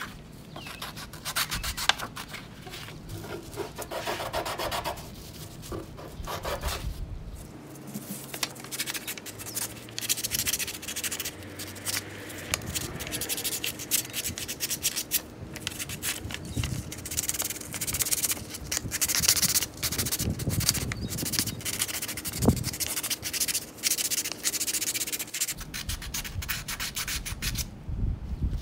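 Sandpaper rubbed back and forth by hand over a rusty old shovel: a dense, continuous run of quick scraping strokes.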